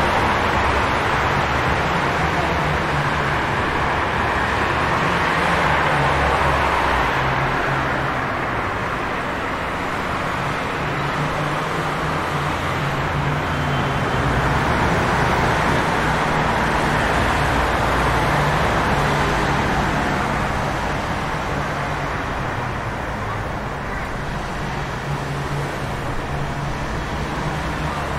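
City street traffic ambience: a steady wash of passing cars with a low engine rumble underneath, slowly rising and falling in loudness.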